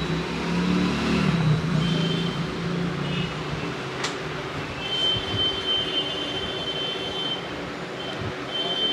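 Passing road traffic. An engine hums low in the first two seconds, there is a sharp click about four seconds in, and a high, steady squeal sounds twice, in the middle and near the end.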